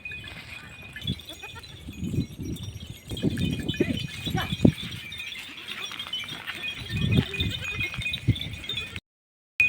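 Flock of sheep and goats bleating at irregular intervals over a steady high-pitched ringing; the audio drops out briefly near the end.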